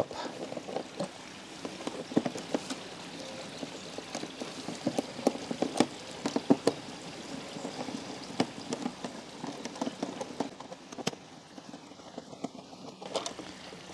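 A hex screwdriver backing small screws out of the robotic mower's plastic top cover: irregular light clicks and taps of the tool and screws against the plastic.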